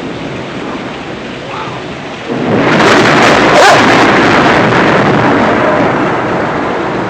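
Heavy rain pouring steadily, then about two seconds in a sudden loud thunderclap that crackles and rumbles on, slowly fading under the rain.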